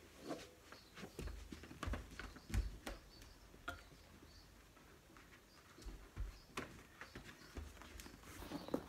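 Faint footsteps and scattered light knocks and clicks of a person moving about a room, with a few dull low thumps, the last ones as she comes back carrying a box.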